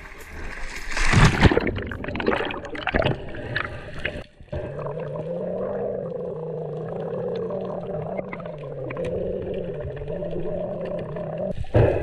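Water splashing as a spearfisher in a wetsuit slips off a boat into the sea, loudest about a second in. It gives way to the muffled underwater sound: a steady low hum whose pitch wavers slightly, then a loud rush of water near the end.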